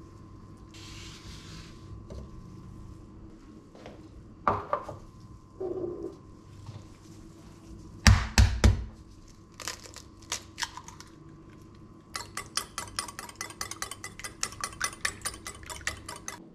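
A ceramic bowl set down on the worktop with a clatter, a few separate knocks, then a wire whisk beating eggs in the bowl: a quick, even ticking of about five or six strokes a second.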